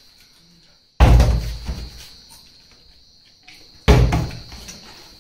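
A partly filled plastic water bottle, flipped by hand, landing with a loud thud on a wooden tabletop twice, about a second in and about four seconds in, each thud dying away over about a second.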